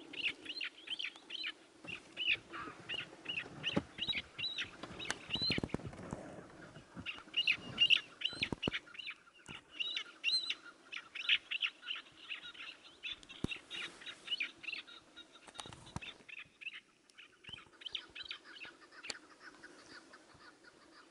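Chukar partridges calling: fast runs of short, sharp repeated notes, several a second, breaking off briefly twice.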